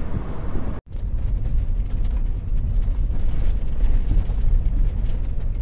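Hymer motorhome on the move: steady low engine and road rumble inside the cab. It breaks off for an instant less than a second in.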